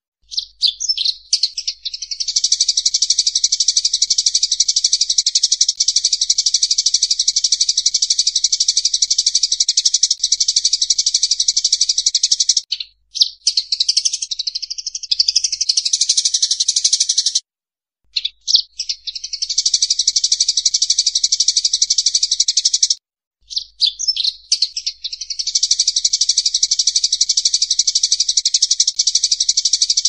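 Sparrows chattering in the fast, unbroken fighting chatter known as 'gereja tarung'. It breaks off briefly three times, around a third of the way in, just past the middle, and about three-quarters through.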